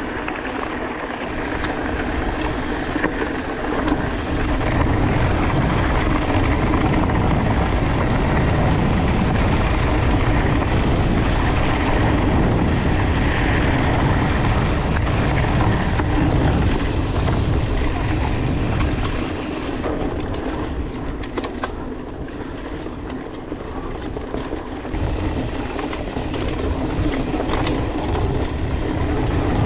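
Mountain bike rolling fast over a gravel track, its tyres crunching and rumbling with wind buffeting the action camera's microphone. The rumble eases for a few seconds past the middle, then picks up again.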